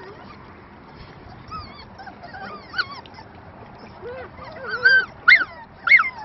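Puppies whining and yipping in short high cries that bend up and down, several in quick succession, loudest in the last second or so.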